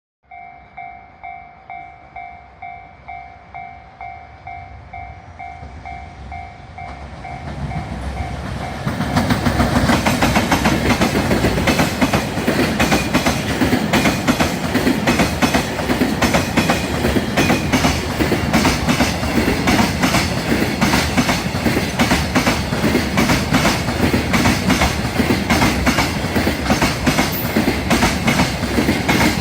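A level-crossing warning bell dings about twice a second. About eight seconds in, an EF210 electric locomotive hauling a freight train passes close by, loud and steady, its wheels clattering over the rail joints and drowning out the bell.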